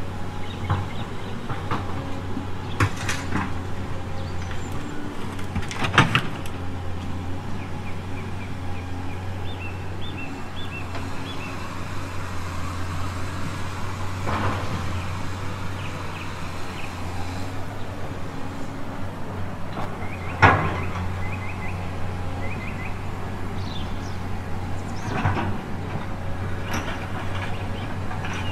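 Radio-controlled Kabolite hydraulic excavator working a gravel pile: a steady low hum from its hydraulic pump, broken by about five sharp clatters of stones as the bucket digs.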